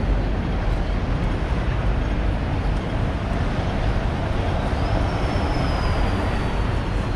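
Steady rumble of street traffic and a tram's running gear, with an oncoming double-decker tram passing close alongside near the end. A faint high squeal, slowly falling in pitch, comes in about five seconds in.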